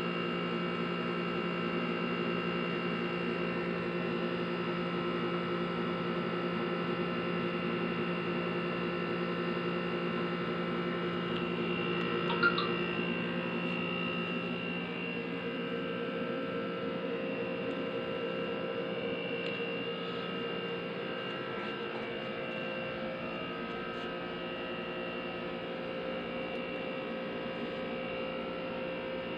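Steady electric hum from appliances running in the room, a constant drone made of several fixed tones, with a single small click about twelve seconds in.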